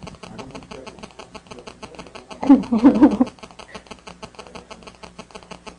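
A brief loud burst of a person's voice, pulsing like a short laugh, close to the microphone about halfway through, over a fast, even crackle on the sound system.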